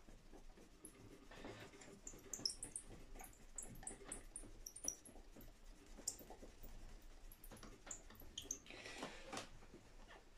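Faint, scattered little ticks and scratches of fingers picking at the lacquered finish of a guitar headstock, working off melted polishing-cloth fibres stuck in it.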